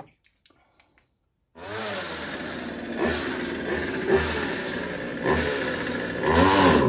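Partner 350 two-stroke chainsaw running after a carburetor diaphragm replacement, revved up and down several times and loudest near the end. It starts abruptly about a second and a half in, after near silence.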